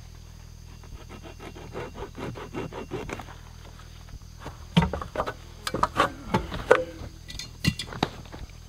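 Hacksaw cutting through a snake gourd's stem in quick, short strokes, about four or five a second. Louder irregular knocks and rustling follow from about five seconds in.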